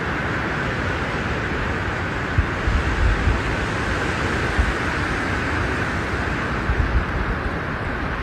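Steady rushing wind, with low gusts buffeting the microphone now and then.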